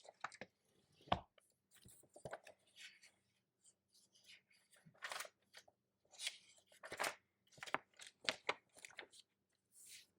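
Faint, irregular clicks, taps and short scraping rustles of small objects being handled on a desk, spaced about half a second to a second apart.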